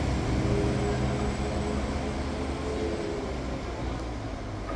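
Northern Class 195 Civity diesel multiple unit pulling away from the platform, its diesel engines giving a steady hum that slowly fades as the train moves off.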